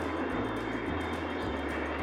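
Steady rushing noise of wind and tyres while riding an e-bike, with a low bass line of background music changing note about twice a second underneath.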